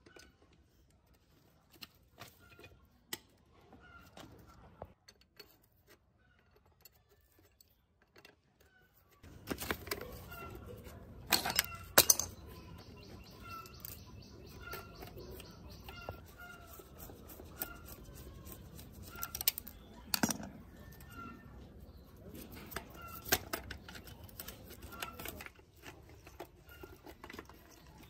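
Sharp metal clicks and clanks of a wrench on rusty bicycle parts as the rear derailleur and wheel are worked loose, the loudest knocks about a third of the way in. A small bird chirps over and over in the background.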